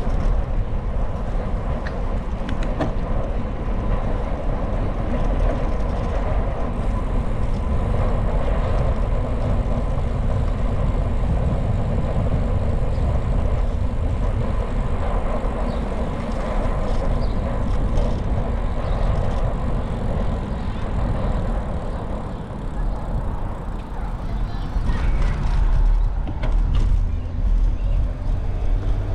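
Steady wind rumble on the microphone with road traffic noise, as heard while cycling.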